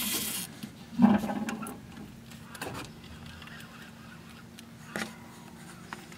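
Catfish rod being pulled from a boat-mounted rod holder as a fish is hooked: a short scraping rush at the start, then a loud knock about a second in, followed by lighter knocks and clicks of rod and gear handling over a faint steady hum.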